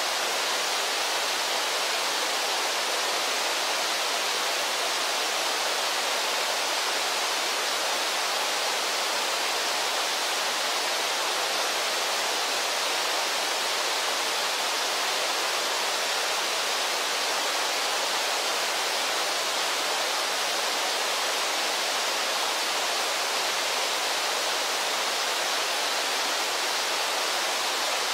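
Steady rush of white water pouring over Brooks Falls, the low rock-ledge waterfall on the Brooks River, an even hiss-like sound with no breaks or changes.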